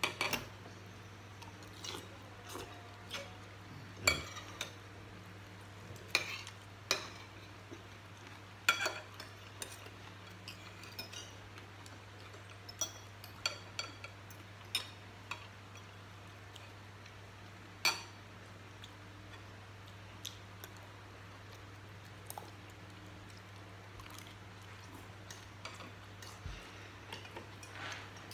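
Spoons and forks clinking and scraping against ceramic plates and bowls at irregular intervals while eating, over a steady low hum.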